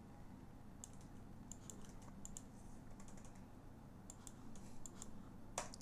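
Faint typing on a computer keyboard: scattered key clicks as nameserver addresses are entered into web form fields, with one sharper click near the end.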